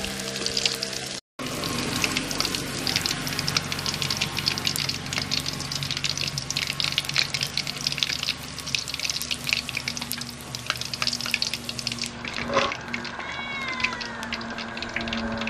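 Skinless fish pieces deep-frying in hot oil: a dense crackling sizzle that thins out about twelve seconds in, as the oil calms once the pieces are lifted out. A short break in the sound comes about a second in, and a few short falling high calls sound near the end.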